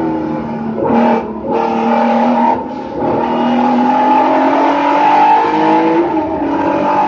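Race car engine heard from inside the cockpit, pulling hard under load with its pitch climbing. About a second and a half in there is a brief dip and the pitch drops, as at an upshift. A second short dip comes near three seconds before the engine climbs again.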